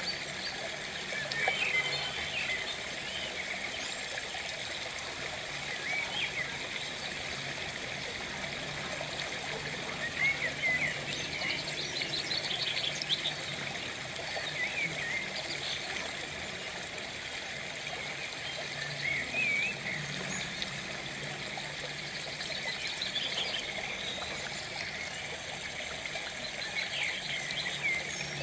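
Running water, like a small stream trickling steadily, with birds chirping now and then and a few quick trills.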